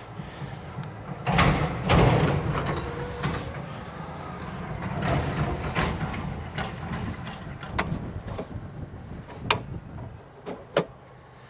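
A steady low engine rumble runs underneath. A loud rattling clatter comes about a second and a half in, then a few sharp clicks and knocks near the end.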